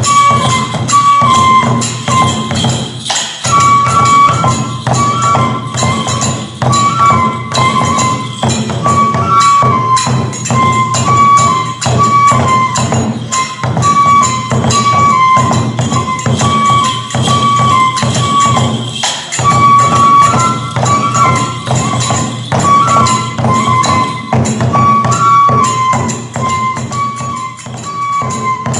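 Kagura accompaniment: a transverse flute plays a repeating melody of held notes over fast, steady drumming and jangling metallic hand cymbals. The drumming briefly drops out about three seconds in and again around nineteen seconds.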